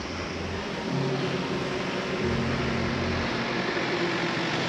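A vehicle engine running steadily under a constant hiss, its low hum shifting in pitch a couple of times.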